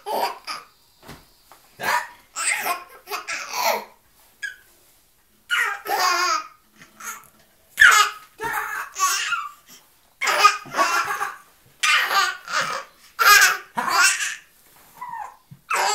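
A baby laughing hard, in a string of short bursts about a second apart with a couple of brief pauses between them.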